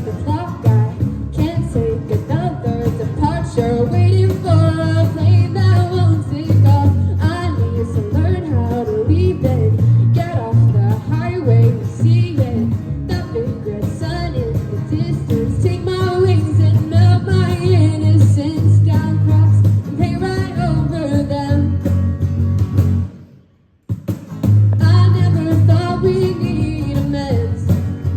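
Rock band playing a section of an original song with guitars, bass and drums and a bending melodic lead line over them. The whole band stops dead for about a second near the end, then comes back in.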